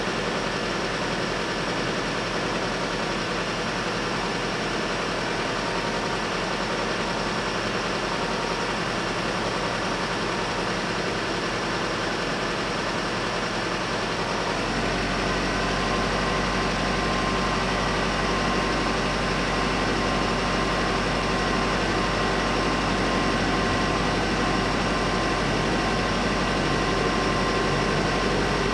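Steady road-traffic noise with car engines idling. About halfway through, a deeper steady engine hum comes in and the sound grows slightly louder.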